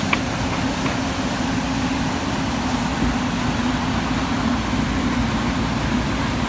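JCB 220 LC excavator's diesel engine running steadily at an even pitch, with a faint click right at the start.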